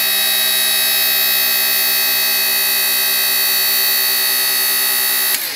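Electric-hydraulic lift on a homemade bandsaw sawmill running with a steady buzzing whine while the saw head is set for a 4-inch cut. It cuts off sharply near the end.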